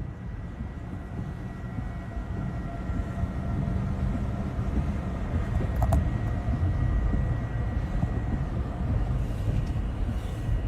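Tornado wind making a steady, low, train-like rumble, with a faint steady high tone over it.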